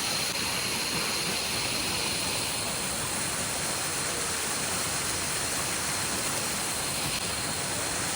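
Steady rushing of a jungle waterfall cascading over rocks, even and unbroken, with a thin steady high tone running beneath it.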